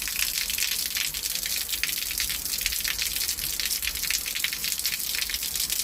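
Heavy rain falling steadily: an even hiss full of dense, fast spattering drops.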